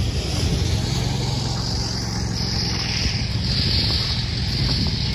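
ATV engine running steadily at low speed, with wind noise on the microphone.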